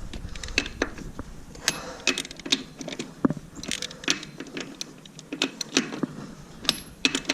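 Irregular sharp clicks and light metallic clatter, several a second, like small hard objects being handled.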